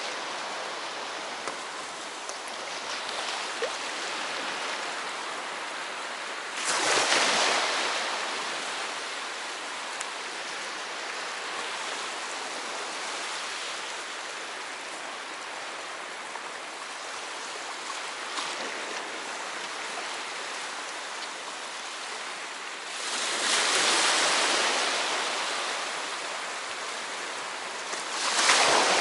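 Sea waves washing on the shore in a steady hiss, with three louder breakers: about seven seconds in, a longer one past the twenty-second mark, and one near the end.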